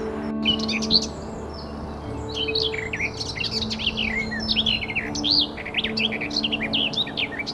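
A small warbler singing a fast, varied warble of quick rising and falling notes in long runs, with a brief pause near the start. A steady background music drone runs underneath.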